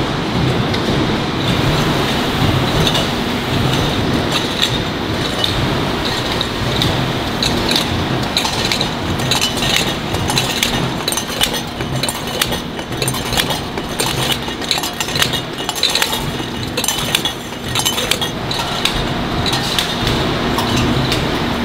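Oil-filter production line running: a steady machine din with frequent sharp metallic clinks of steel filter canisters knocking together on the conveyors. The clinks come thicker from about halfway through.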